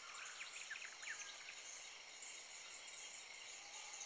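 Faint outdoor nature ambience: insects chirping steadily in a high drone, with a few short bird-like chirps in the first second.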